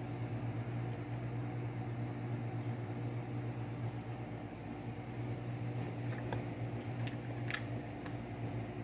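Steady low hum of a running kitchen appliance, with a few light clicks about six to eight seconds in.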